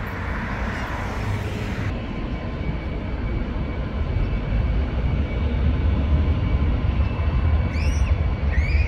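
Outdoor city background: a steady low rumble of traffic, with a hiss that cuts off suddenly about two seconds in and a few short bird chirps near the end.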